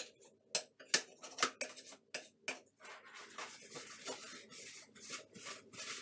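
A few sharp scrapes and taps of a small metal utility tool at the edges of a gap in the wall tile. From about three seconds in, a paper towel is rubbed back and forth over the bare patch.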